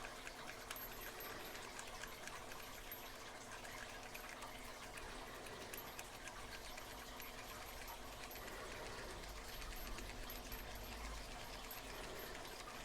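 Faint ticking and scraping of a tubular lock pick being pressed into and twisted in a tubular lock, over a steady low background hiss.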